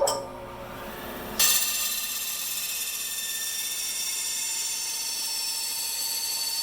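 Bandsaw clicks on and runs. About a second and a half in, the blade starts cutting the cedar board with a sudden, steady, high-pitched hiss and whine.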